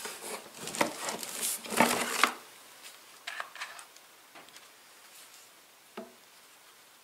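Plastic wrapping rustling and crinkling as hands move a plastic-bagged pressure washer body inside a cardboard box for about two seconds, then a few faint clicks and a light knock as parts are handled.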